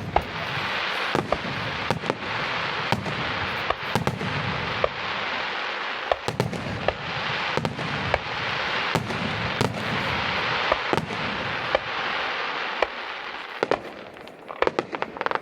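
Fireworks bursting in quick succession: a dense, continuous crackle with many sharp bangs, thinning about thirteen seconds in to scattered pops.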